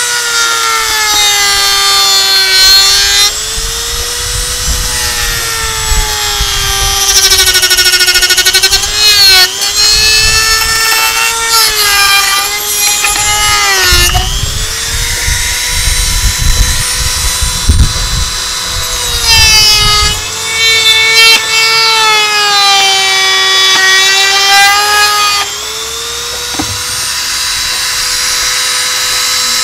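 Handheld electric power tool cutting a factory mounting tab back for supercharger clearance. Its high whine drops in pitch each time it bites into the work and climbs back when it comes off, several times over, with rough grinding noise during the heavier cuts.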